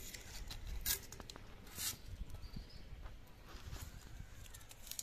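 Faint papery rustles and a few short crackles of a red onion's dry skin being peeled off by hand.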